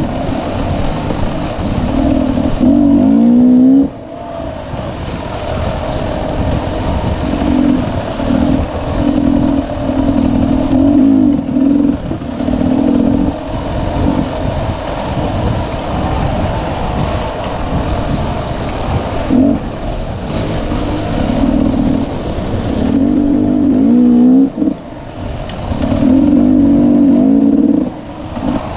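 Onboard sound of a GasGas enduro motorcycle's engine revving up and down as the rider works the throttle on a rough trail. The revs rise and fall repeatedly, with sudden drops when the throttle is shut off about four seconds in and twice near the end.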